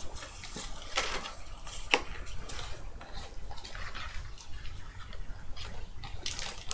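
Cardboard trading-card box and its foil-wrapped packs being handled, a string of light rustles, scrapes and ticks, with a louder crinkle near the end.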